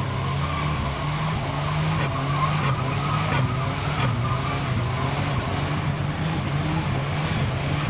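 Car doing a burnout: its engine held at steady high revs while the driven tyres spin and squeal on the asphalt.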